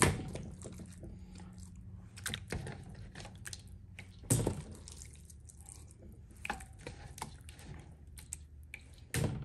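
Meat being dipped into and lifted out of a stainless steel bowl of vinegar-and-water seasoning marinade: liquid splashes and drips at irregular moments, the loudest about four seconds in and near the end, over a steady low hum.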